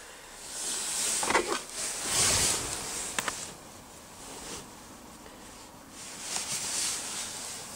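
Rustling and scraping handling noise in two spells, with a couple of sharp clicks in the first, as hands move against the plastic dash trim and the handheld camera.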